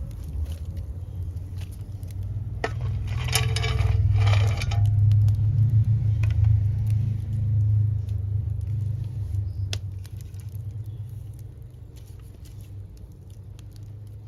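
Street-cleaning machine washing the marketplace pavement: a low engine rumble that builds to its loudest about halfway through and then fades away, with a brief hissing burst about three seconds in.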